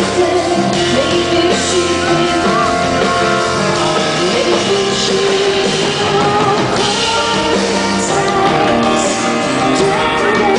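Live rock music: a band playing while a woman sings, continuous and loud.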